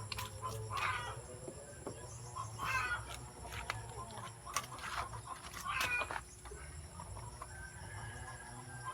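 Chickens clucking, a few short calls a couple of seconds apart, over a low steady hum.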